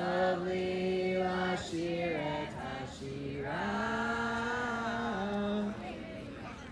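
A group of voices singing a slow Hebrew song in unison, in long held notes that step to a new pitch every second or two.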